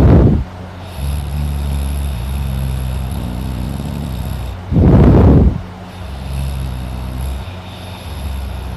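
A man snoring loudly in deep sleep: a loud snore about every five seconds, with a low, steady droning breath between the snores.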